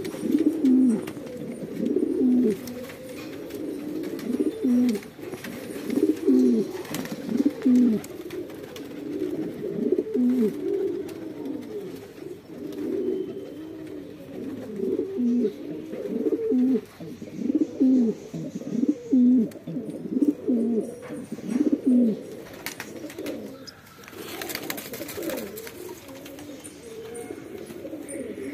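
Several capuchine fancy pigeons cooing over and over, deep overlapping coos repeating about once a second. A brief rustling burst comes about three quarters of the way through.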